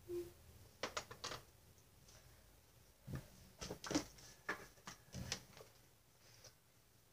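Scattered light clicks and knocks: a few about a second in, then a denser run from about three to five and a half seconds in.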